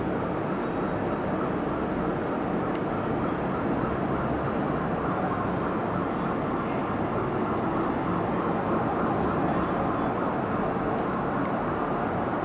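Steady rumble of downtown city traffic heard from high above the street, with no distinct event standing out.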